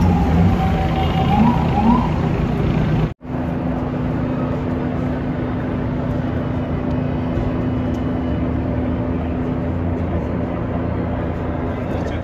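Emergency vehicle siren wailing up and down over city traffic in the first two seconds. After an abrupt cut, steady street traffic noise with a constant engine hum.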